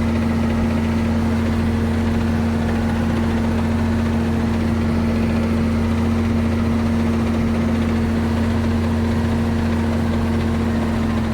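Ford 9700 tractor's six-cylinder diesel engine running steadily at working throttle, with the PTO engaged driving the manure spreader.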